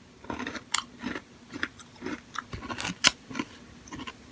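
Biting and chewing a kinpira gobo (sweet burdock) snack, with irregular short crunches and clicks.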